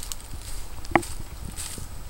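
Footsteps crunching through dry leaf litter and dead grass at a walking pace, with one sharp knock about a second in.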